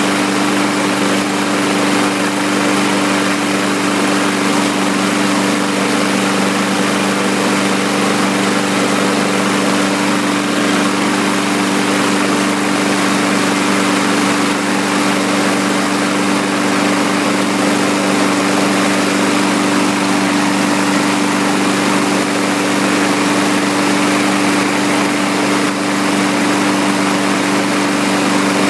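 Briggs & Stratton 675EXi single-cylinder lawn mower engine running steadily at a constant speed, with an even, unchanging hum.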